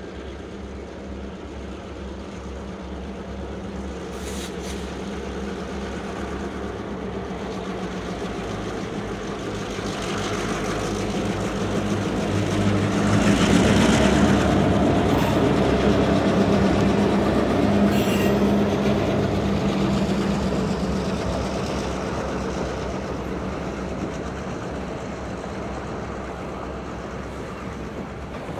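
Diesel-hauled freight train passing: the locomotive engine drone and rolling noise build steadily, peak about halfway through, then fade away.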